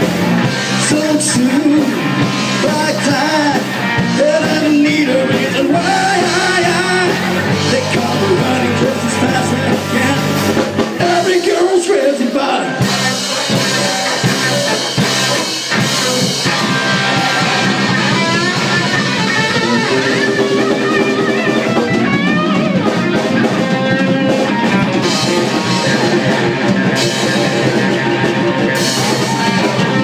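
Live rock band playing: electric guitar, bass guitar and drum kit, with a woman singing. About twelve seconds in, the low end drops out briefly with a downward slide. In the second half she plays harmonica into the vocal microphone.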